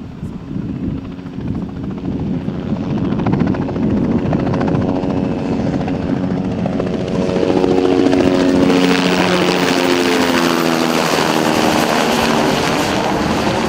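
A two-bladed light helicopter flying low toward the listener and passing overhead. Its rotor chop grows louder over the first few seconds, then its pitch drops as it goes past, from about eight seconds in.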